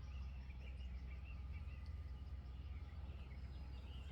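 Faint birds chirping over a steady low background hum.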